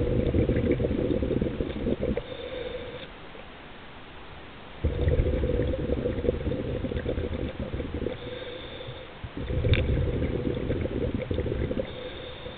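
Scuba regulator exhaust: a diver's exhaled bubbles bubbling and gurgling in three long breaths, with a faint hiss of inhalation through the regulator in the gaps between them.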